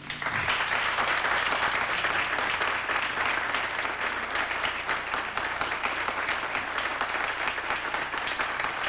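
Studio audience applauding as a sung song ends: dense, steady clapping that starts a moment in and does not let up.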